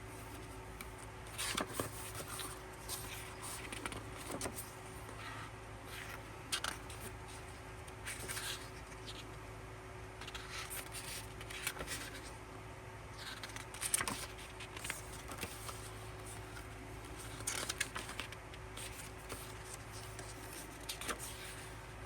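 Pages of a small album photo book being turned and handled: irregular soft paper rustles and light taps over a faint steady hum.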